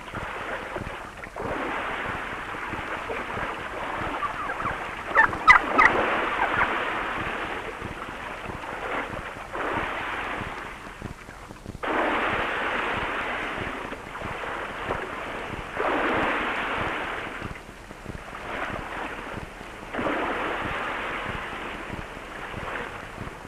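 Sea surf breaking on rocks, a rushing wash that swells and falls away every few seconds. A brief high cry cuts through about five seconds in.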